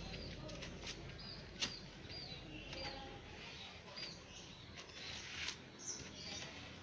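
Small birds chirping in short, repeated high calls, with scattered light clicks and knocks in between.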